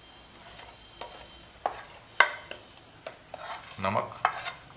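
Metal spoon clinking and scraping against a glass bowl and a plastic plate as spice powder is spooned in: a string of light, separate clinks, the loudest about two seconds in.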